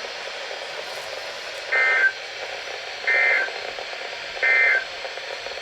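NOAA Weather Radio SAME end-of-message code: three short, evenly spaced two-tone data bursts marking the end of the warning broadcast, over steady radio hiss.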